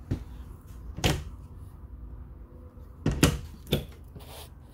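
Wooden cabinet doors being opened and shut, giving a few sharp clicks and knocks from the doors and their catches: one near the start, one about a second in, and several close together a little past three seconds.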